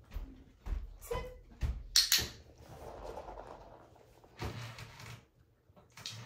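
Scattered light clicks and knocks with a soft rustle: a puppy's paws on a hard floor and hands working a fabric treat pouch. A sharp click about two seconds in is the loudest sound.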